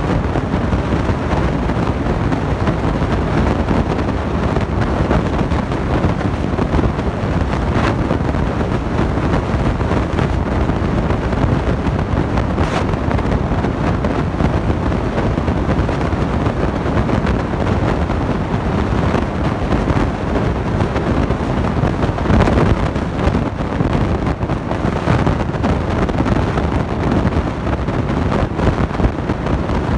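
Steady loud rushing hum of the refrigeration units of glass-door beverage coolers, their compressors and condenser fans running.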